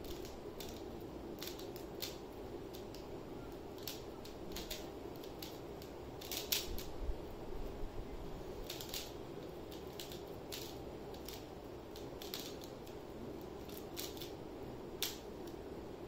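Plastic Pyraminx puzzle being twisted by hand: irregular clicks of its layers snapping round, with a quicker flurry of turns about six seconds in, over a steady low room hum.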